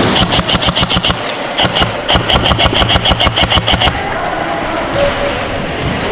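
Battery-powered airsoft electric gun (AEG) firing rapid full-auto bursts, two strings of quick even shots over about four seconds with a short break between, then stopping.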